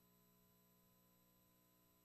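Near silence: only a faint, steady hum and hiss.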